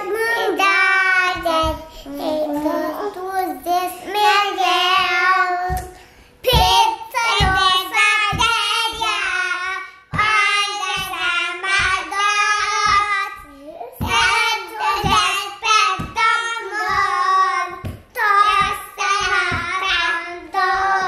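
Young children singing a Romanian Christian children's song without accompaniment, in sung phrases with short breaks between them.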